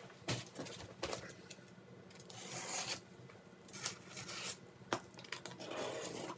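A taped cardboard shipping box being handled and slid across a table while its packing tape is pulled and ripped open: a string of short scraping, rustling and tearing noises with a few sharp knocks.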